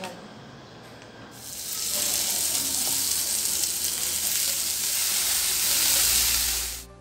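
Finely chopped coriander leaves hitting hot oil in an aluminium kadai and sizzling loudly as they are stirred with a spatula, the first stage of sautéing them for coriander rice. The sizzle starts about a second in, after a quieter moment, and cuts off suddenly near the end.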